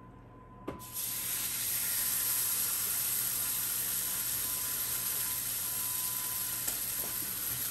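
Raw bacon strips hitting a hot skillet and sizzling: the sizzle starts abruptly about a second in and then holds steady.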